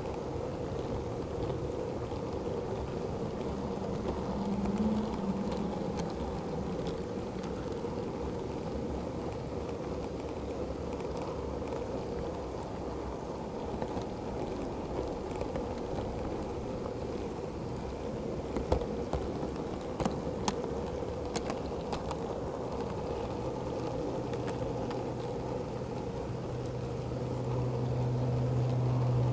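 Model Class 08 shunter running along the track, heard from on board: a steady whirring rumble of its motor and wheels on the rails. A few sharp clicks come about two-thirds of the way through, and a low hum swells near the end.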